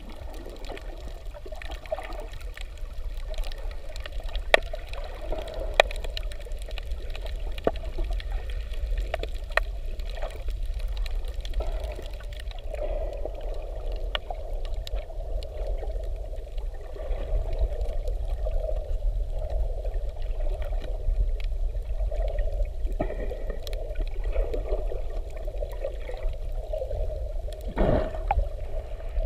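Muffled water sound heard underwater by the camera: a steady low rumble and wavering wash with scattered small clicks, and a louder swoosh near the end.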